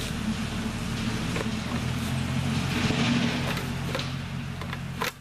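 Lawn mower engine running steadily, with a sharp click near the end.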